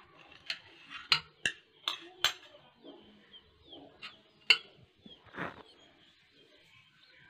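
Steel puttu tube clinking against a stainless steel plate as the steamed ragi puttu is pushed out and set down: a run of sharp clinks over the first two and a half seconds, two more around four seconds, and a longer scrape about five and a half seconds in.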